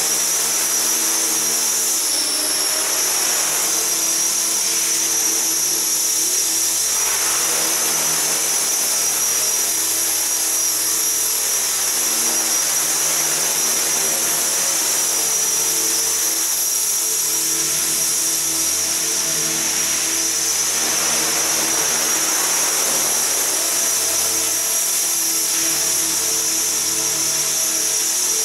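Align T-Rex 450 SE V2 electric RC helicopter in flight: a steady high whine from its motor and drive gears over a lower hum from the rotor, shifting a little in pitch as it manoeuvres.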